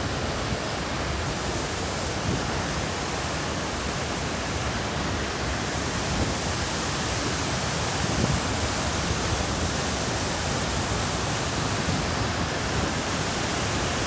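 Large waterfall, a loud, steady rush of falling water.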